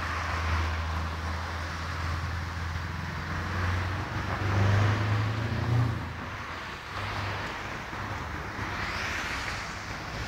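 Scania 580 truck's V8 diesel engine pulling away hard: a deep drone that swells and steps up in pitch about four to six seconds in, then fades as the truck moves off. Road hiss from passing traffic swells near the end.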